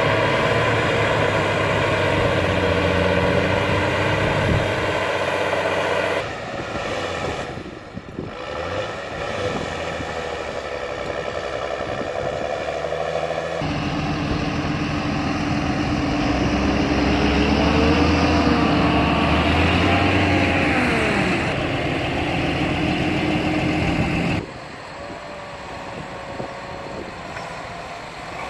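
John Deere tractor's diesel engine running hard under load while stuck in deep mud, pulling a cultivator. The sound changes abruptly several times, bends up and down in pitch in the middle, and is quieter near the end.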